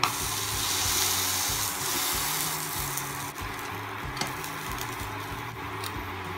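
Bread pizza sizzling in a non-stick frying pan on an induction cooktop as a silicone spatula works under it; the sizzle is loudest for the first three seconds, then fades, with two light clicks near the end.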